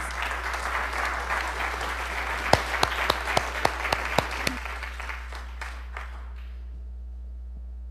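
Congregation applauding to welcome a speaker, with a few loud individual claps standing out in the middle. It dies away about six seconds in.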